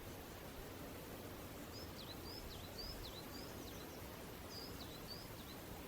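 A songbird chirping: a run of short, high, swooping notes, about two a second, over faint steady outdoor background noise.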